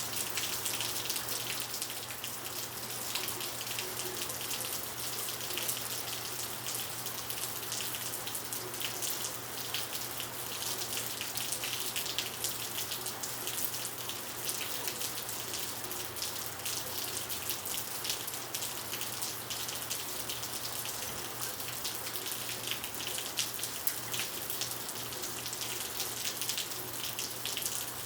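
Heavy rain falling hard on asphalt: a steady, dense patter of drops hitting the pavement.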